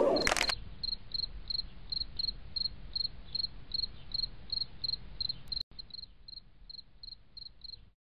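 A cricket chirping steadily, short high chirps about three a second, fading out near the end.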